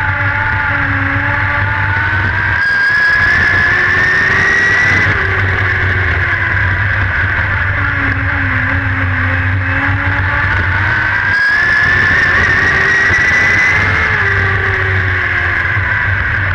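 Race car engine heard from inside the cockpit of a dirt-track car, revving up in rising pitch twice, each time louder, then easing off and dropping back in between, as on a lap's two straights and two turns.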